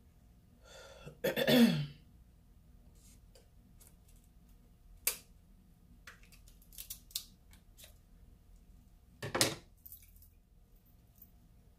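King crab leg shell being cracked and snapped apart: a loud crunch about a second and a half in, scattered small cracks and clicks, and another sharp crack near the end.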